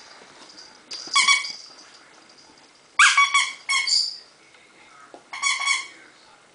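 A dog's squeaky toy being chewed and bitten by a Papillon: four short, high, clear squeaks, the second and third close together.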